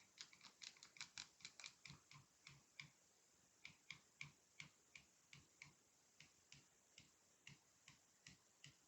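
Faint, sharp little clicks in a long, slightly uneven series, roughly three a second.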